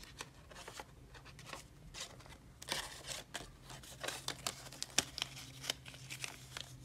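Paper money being folded and slid into a clear plastic cash envelope: soft rustling and crinkling with scattered light clicks, busiest in the middle.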